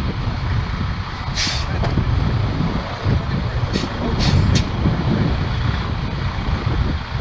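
Heavy truck running as it pulls its launching trailer slowly up out of the water, under a dense low rumble. Four short hisses sound over it, one about a second and a half in and three in quick succession around the four-second mark.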